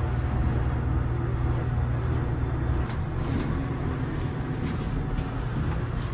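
Street traffic: a nearby motor vehicle's engine running with a steady low drone, and a few faint clicks about three seconds in.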